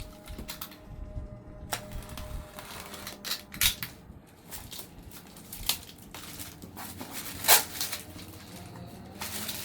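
A cardboard shipping package being handled and opened by hand: irregular knocks, taps and scrapes, with a few sharper snaps, the loudest about seven and a half seconds in.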